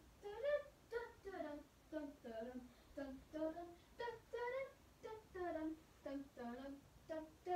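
A child singing or humming a wordless tune off-camera, a string of short sung notes about two a second.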